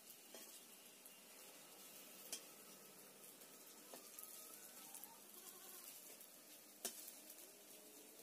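Leaf fritters frying in hot oil in a metal kadai with a faint, steady sizzle, while a metal spatula turns them, knocking sharply against the pan twice.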